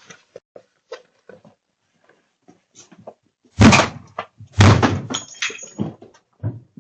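Two loud bangs about a second apart, like a door being struck hard, with a short metallic ring after the second, amid light clicks and knocks.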